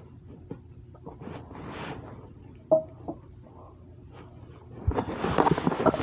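Crumpled paper food wrapper being handled: soft rustles and a single sharp click, then from about five seconds in a louder, continuous crinkling and crackling of the paper.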